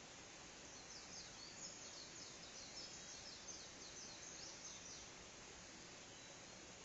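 A bird singing a faint run of short, high notes repeated quickly, starting about a second in and stopping about five seconds in, over a steady low background hiss.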